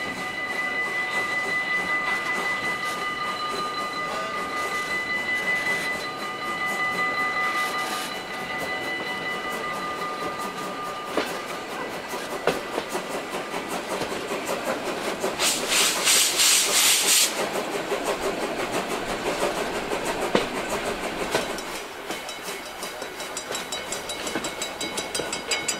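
Steam tram train running along the track, heard from a carriage, with clicks over rail joints. A level-crossing warning bell rings at first and fades away over the first several seconds, and a loud burst of steam hiss comes from the locomotive for about two seconds midway; near the end another crossing bell starts ringing.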